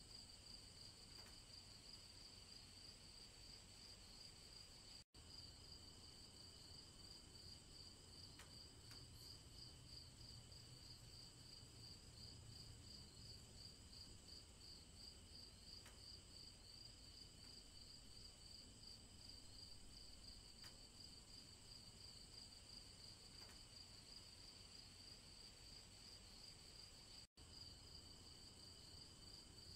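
Faint woodland ambience of insects chirping: a steady, fast-pulsing high trill. It cuts out for an instant twice.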